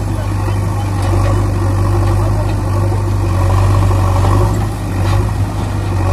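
An engine running at idle with a steady low hum.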